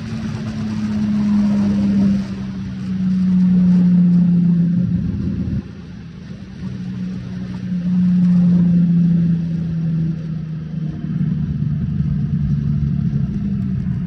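Triumph Speed Triple S 1050's three-cylinder engine running as the bike slows from about 130 km/h. Its note falls in pitch and swells again a few times, with dips in loudness about two and five and a half seconds in. There is a steady rush of wind noise.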